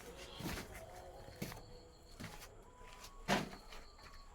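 Four separate knocks and clunks a second or so apart, the loudest about three seconds in, from handling hard parts during hand-pump plumbing work.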